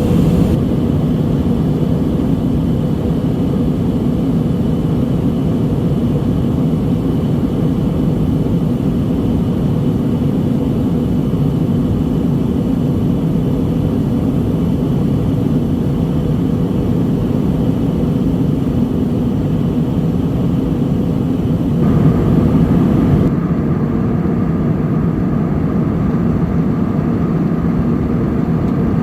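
Airliner cabin noise in flight: a steady, loud drone of engines and airflow with low hum tones. About 22 seconds in, a higher steady tone joins it and the hiss above it drops.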